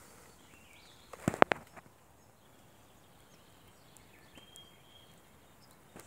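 Ewe licking her newborn lamb clean: a quick cluster of wet mouth smacks about a second in, then only quiet outdoor background.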